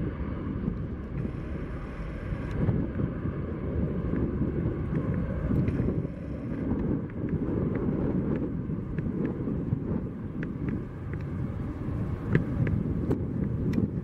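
Twin-engine business jet climbing out after takeoff, its engines giving a steady low rumble, mixed with wind buffeting the microphone.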